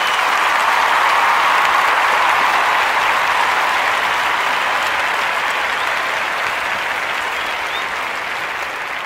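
Applause, loud and steady, fading slowly over the last few seconds.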